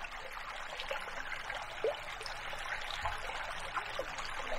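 Water flowing and trickling steadily, with small irregular splashes and gurgles.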